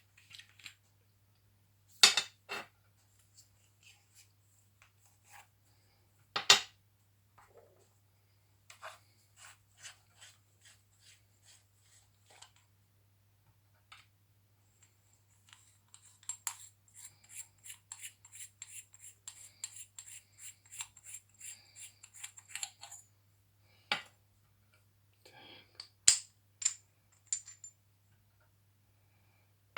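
Zoom flashlight being unscrewed and taken apart by hand: sharp clinks and knocks of its metal parts, with runs of quick, even ticks, about three a second, as threaded sections turn.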